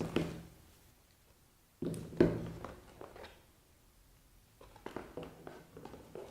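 Unboxed camera accessories and their packaging being handled: a sudden knock about two seconds in that trails off, then small clicks and rustles near the end.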